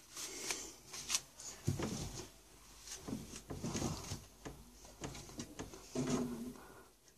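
Pokémon booster packs being handled and moved about on a desk: irregular soft rubbing, scraping and light taps.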